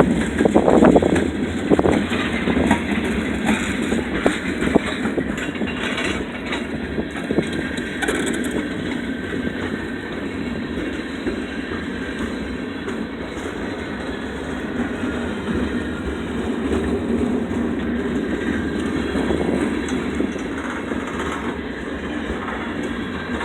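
WAPO freight train rolling past, its wheels clicking over the rail joints. The clicks come thick in the first several seconds, then the train settles into a steady rolling noise.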